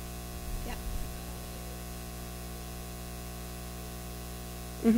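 Steady hiss with a faint electrical hum: the recording's room tone during a pause in speech. A quiet "yeah" comes about a second in, and a short spoken word right at the end.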